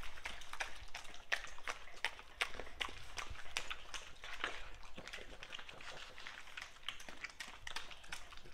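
A dog's claws clicking and tapping irregularly on a hardwood floor as it moves about.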